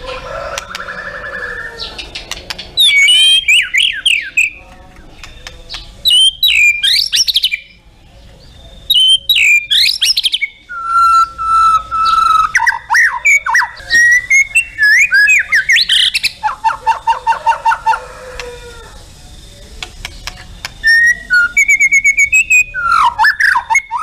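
White-rumped shama (murai batu) singing a long, varied song of loud whistled phrases: fast sweeping notes, a held whistle, runs of repeated notes and rapid trills.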